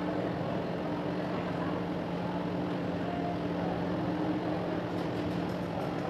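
A steady mechanical hum over a constant rushing noise, with a few faint small clicks near the end.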